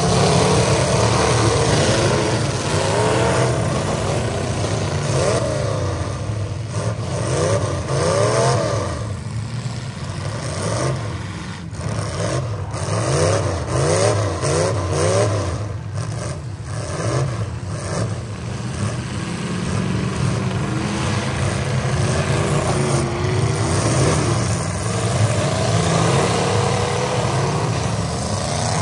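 Demolition derby pickup truck engines running hard and revving, their pitch rising and falling over and over, at times about twice a second. A few sharp knocks come through in the middle stretch.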